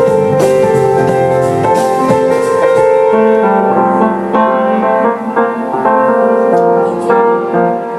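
Music led by a keyboard: loud, held piano-like chords that change every second or so, without drums.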